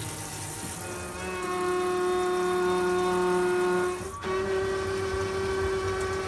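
Electric water pump running with a steady whine as it pushes water from a freshwater tank to the kitchen tap, stepping up in pitch about a second in and breaking briefly just after four seconds; water from the tap runs into a stainless steel sink.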